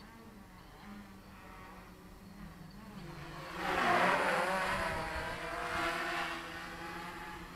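Quadcopter's motors and 10x4.5 propellers buzzing in flight. The hum grows much louder as the quad comes close about three and a half seconds in, its pitch dipping and rising, then swells once more before easing off.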